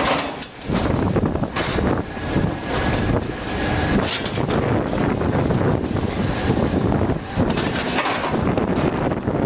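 Link-Belt diesel pile hammer working, with repeated blows over continuous loud noise.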